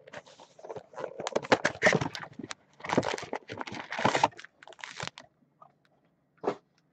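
A 2015 Gridiron Kings football card box being opened by hand, with crackling and rustling from the cardboard box and the wrapped packs as they are pulled out. The handling noise stops about five seconds in, followed by a single light knock.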